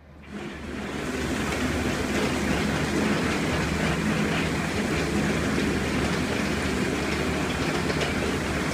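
ALLU DS 3-23 screening bucket on a wheel loader, its 40 mm drums turning and crushing plasterboard, making a steady dense clatter over the low hum of the loader's engine. The sound fades in over the first second, then holds level.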